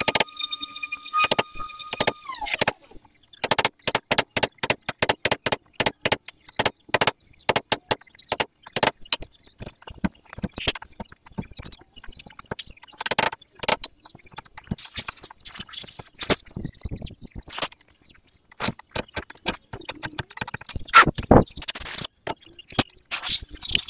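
A high-pitched machine whine that winds down and stops about two seconds in, followed by a long run of irregular sharp clicks and knocks, typical of hand work on timber in a workshop.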